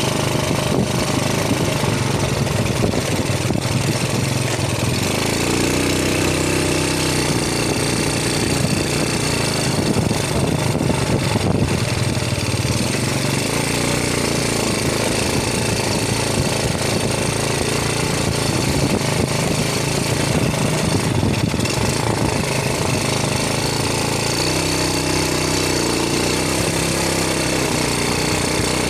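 Steady loud mechanical rattle with an engine-like hum, its pitch rising and falling twice, about five seconds in and again near the end.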